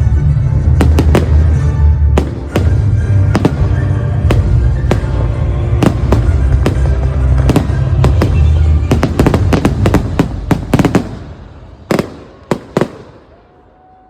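Fireworks display: a rapid string of bangs and crackles over a continuous low rumble. It dies away about eleven seconds in, with a few last separate bangs near the end.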